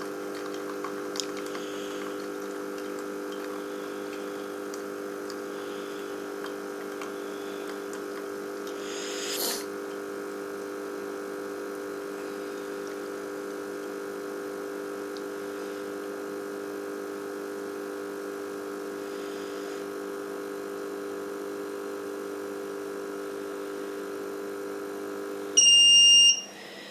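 Closer to Nature Perfect Prep formula machine running with a steady hum as it dispenses the second, remaining lot of water into the bottle. The hum stops about 25 seconds in, and the machine gives a loud, high beep to signal that the bottle is ready.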